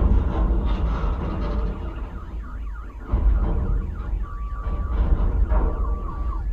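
An electronic siren sounding in rapid falling sweeps, a few a second, with a steady high tone joining in from about four seconds in. A low rumble dies down over the first two seconds.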